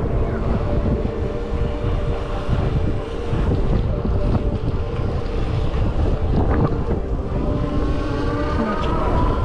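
Wind rushing and buffeting against the microphone while riding at speed on an electric scooter, with a steady whine above the rumble that rises near the end.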